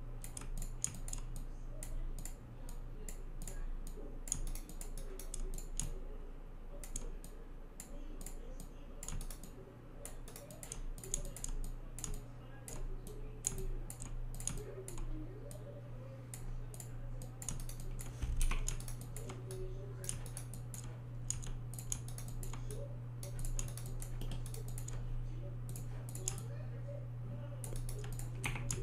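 Irregular clicking and tapping of a computer mouse and keyboard keys while 3D modelling software is worked, over a steady low hum.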